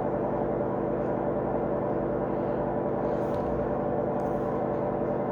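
A steady background drone of many held, ringing tones that stays level and unchanging throughout, like ambient drone music or a sustained gong-like pad.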